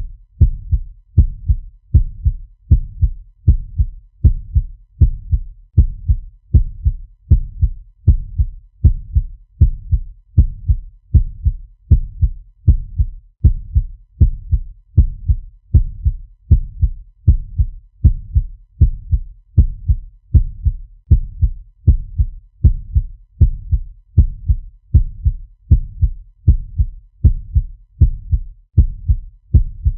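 Fast heartbeat sound effect: deep, low thumps repeating evenly at about one and a half beats a second, steady throughout.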